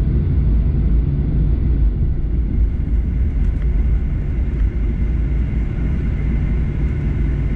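Steady low rumble of a jet airliner heard from inside the cabin, the aircraft on the ground just after landing.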